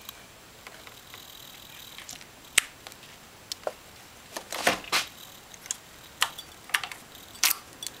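Keys jangling, with a series of sharp clicks, as the ignition key is handled. There are about a dozen scattered clicks, the loudest about two and a half seconds in and a cluster near the middle, and no engine running.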